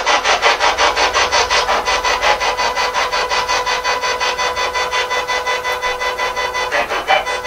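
Spirit box radio sweeping rapidly through stations: an even, rapid pulsing of static, several bursts a second, over a steady tone.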